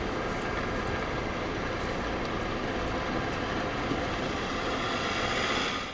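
Steady heavy vehicle noise, a truck's engine and road noise running evenly, which cuts off suddenly at the end.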